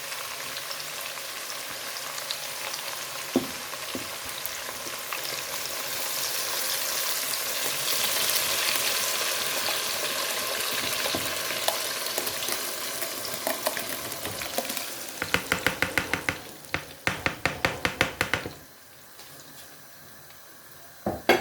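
Blended tomatoes sizzling as they fry in hot palm oil with onions in a pot, swelling louder partway through. Near the end comes a rapid run of knocks, a spoon stirring against the pot, and then the sizzle drops much quieter.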